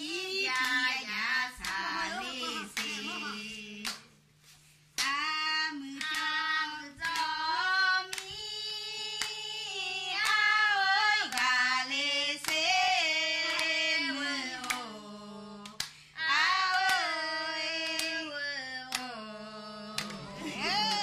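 A woman singing a song without instruments, with sharp hand claps between the phrases and a short break about four seconds in.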